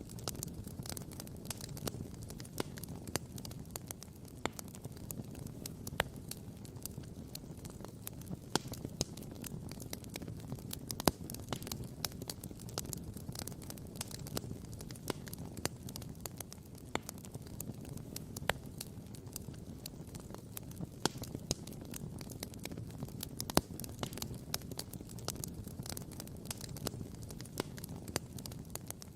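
Wood campfire crackling and popping: irregular sharp snaps, a few much louder than the rest, over a low steady rumble.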